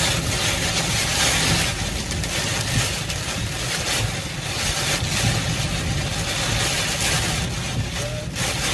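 Steady noise of a car driving through heavy rain, heard from inside the cabin: engine and road noise with rain hitting the windshield.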